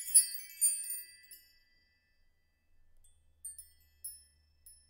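Intro logo sound effect: a flurry of high, glittering chime notes like a glockenspiel that dies away within the first second and a half, then a few single sparkling chimes near the end.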